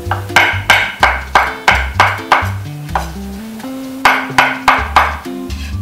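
Chinese cleaver chopping young coconut meat on a wooden cutting board: a quick run of about seven chops, roughly three a second, then a pause and three more chops about four seconds in. Background music plays underneath.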